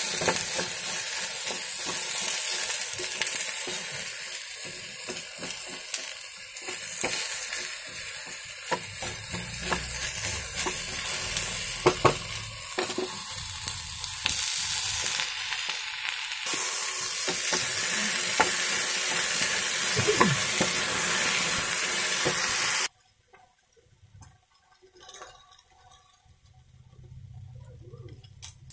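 Sliced ivy gourd frying in oil in a pan, sizzling with a steady hiss, with small clicks and scrapes of stirring through it. About 23 seconds in the sizzling cuts off abruptly, leaving only faint sounds.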